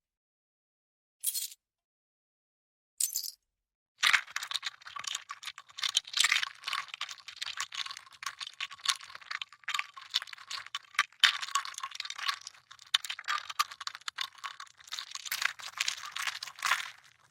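Demolition sound effect: two short crackling bursts, then from about four seconds in a dense, unbroken run of sharp cracks and crunches, high in pitch with no low rumble.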